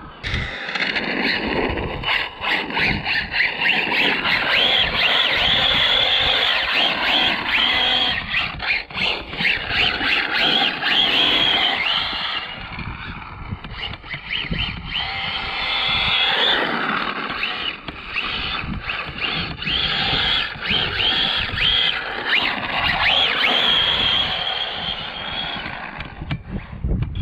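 Arrma Limitless RC car's brushless electric motor whining, rising and falling in pitch again and again as the throttle is worked, over road and tyre noise on asphalt.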